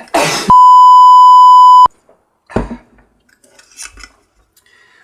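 A loud, steady electronic bleep tone at about 1 kHz, lasting about a second and a half, that cuts off sharply; a short loud noisy burst comes just before it. About a second after the bleep comes a single knock, then small scattered clicks of parts being handled.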